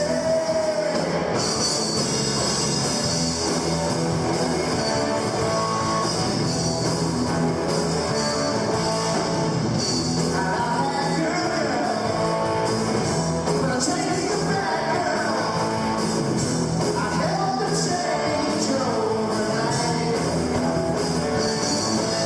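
A rock band playing live: electric guitar and drums with cymbals, and a lead vocal singing the melody over them.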